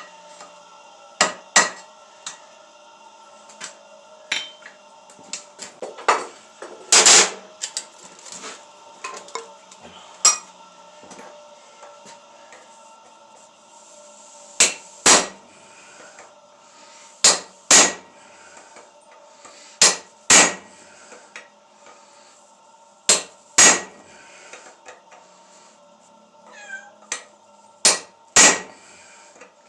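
Hand hammer striking hot steel on an anvil: about seven pairs of heavy blows a few seconds apart, with lighter taps in between, each blow ringing. A steady hum runs underneath.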